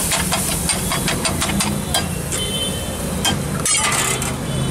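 A steel ladle tapping and scraping on a large flat griddle (tawa) as samosa chaat is mashed. It gives a quick run of metallic clicks, about five a second, that thins out after two seconds and picks up again briefly near the end, over a steady low engine hum.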